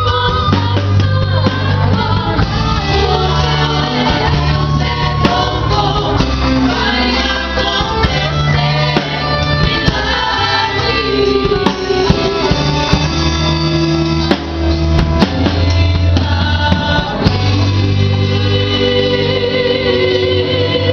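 Gospel worship song: several voices singing over a band with steady bass notes and percussion.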